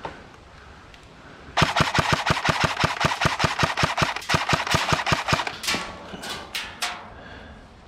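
Airsoft rifle firing a long full-auto burst of rapid, evenly spaced shots for about four seconds, followed by a few separate single cracks.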